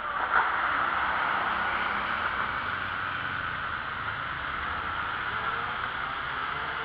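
Steady street noise heard from a moving bicycle: city traffic and the ride's own rush of air and tyres, with a short knock about a third of a second in.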